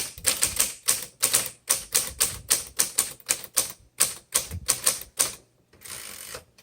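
Smith Corona Coronet Automatic 12 electric typewriter typing: a quick run of sharp key strikes, about three or four a second, with a faint steady hum underneath. The strikes stop about five seconds in, followed by a short rushing sound.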